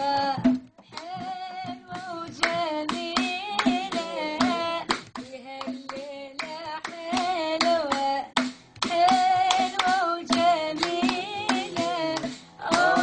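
Oud playing a lively run of plucked notes, with hand claps keeping time.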